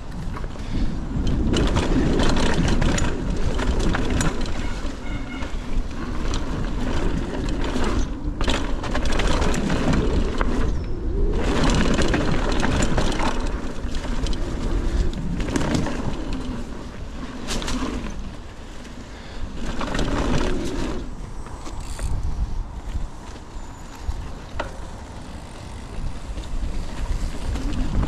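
Mountain bike being ridden over a dirt trail: tyres rolling and crunching on the ground and the bike rattling over bumps, with wind rumbling on the microphone. The noise swells and eases several times as the rider speeds up and slows down.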